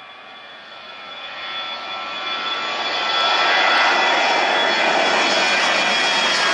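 Airbus A320 twin-jet airliner climbing out at takeoff thrust, its jet engines growing steadily louder over the first three seconds as it comes toward and over the listener, then holding loud with a high engine whine over the noise.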